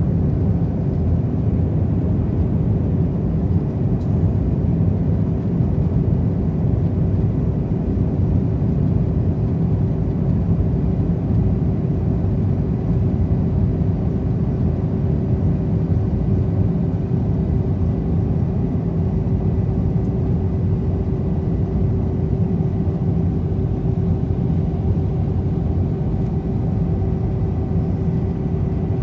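Steady low rumble inside the cabin of an Airbus A319-112 on approach, heard from a seat over the wing with flaps extended: engine and airflow noise, with a faint steady hum over it.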